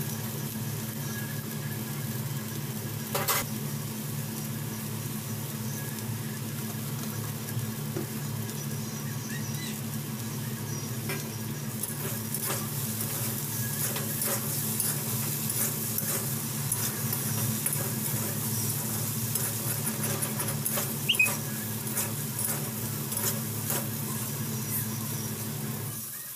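Okra and potato strips sizzling in oil in a metal pan while a steel spatula stirs and scrapes them, the crackle growing denser about halfway through. A steady low hum runs underneath, and a sharp metal clink stands out about three-quarters of the way in.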